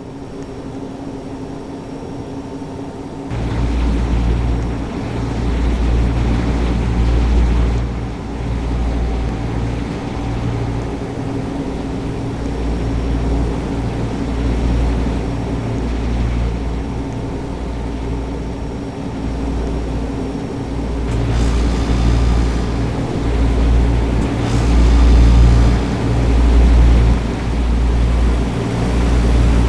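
LG Multi V 5 air-conditioner outdoor unit running, a steady mechanical hum. About three seconds in, a heavy low rumble joins it and pulses unevenly.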